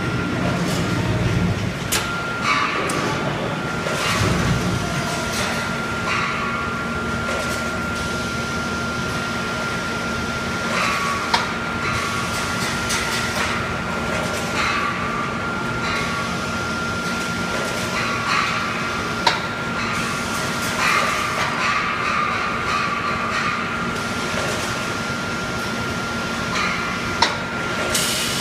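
Automatic wire mesh fence panel welding and bending machine running: a steady machine hum with a thin whine, short bursts of noise every few seconds, and a sharp knock about every eight seconds.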